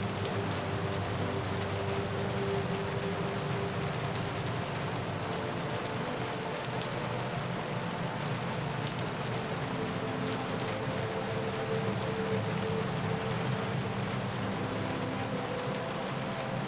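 Steady rain falling, with scattered individual drops ticking over an even hiss. Faint steady low tones sit underneath.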